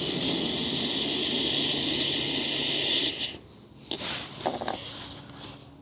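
A steady hiss for about three seconds that cuts off sharply, then a sharp knock and a few fainter clicks.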